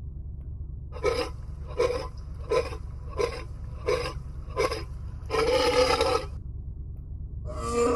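Lion grunting: six short grunts about three-quarters of a second apart, then one longer grunt near the end.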